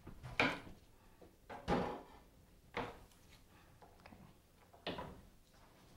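Four separate knocks of a kitchen knife on a cutting board as garlic cloves are crushed, chopped and peeled; the first is the loudest.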